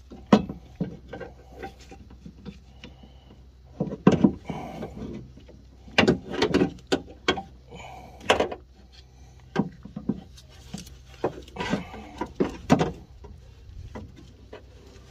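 A metal window regulator and motor assembly being worked into a car door's inner panel: irregular clunks, knocks and rattles of metal against the door shell, coming in short clusters.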